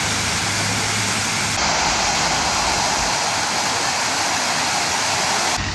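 Water jets of a large city fountain splashing into the basin: a steady rushing hiss. About a second and a half in it turns suddenly louder and brighter.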